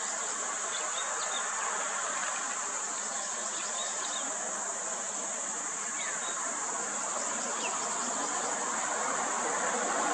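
Steady, high-pitched drone of an insect chorus, with an even rushing noise beneath it that swells slightly near the end and a few faint short chirps.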